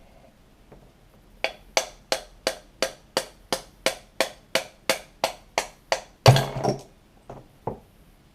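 A hammer tapping a part out of a 66cc two-stroke bicycle engine's split crankcase, likely the clutch mechanism. There are about fourteen sharp, even taps at roughly three a second, then one louder knock with a brief rattle, then two light knocks near the end.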